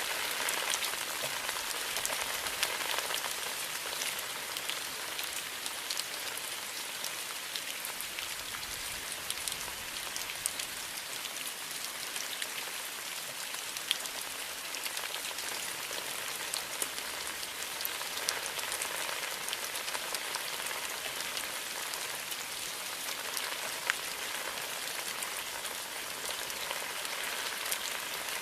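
Steady rain falling on a bamboo grove: an even hiss of rainfall with many fine drop ticks and a few sharper, louder drips scattered through.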